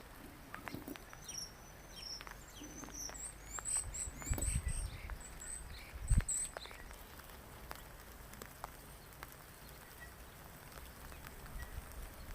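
Light rain pattering, with scattered single drops ticking. A small bird chirps in short high notes over the first half. Two low thumps come about four and six seconds in.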